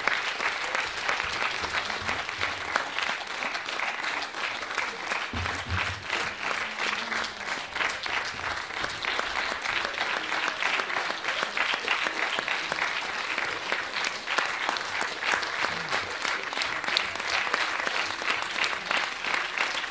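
Theatre audience applauding: a dense, steady clapping from a full hall that keeps up without a break.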